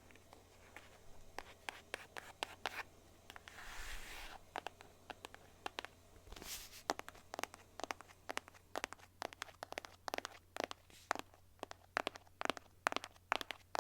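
Fingernails tapping on boxes in quick, irregular runs that grow denser from about halfway, with two short scratching swishes in the first half.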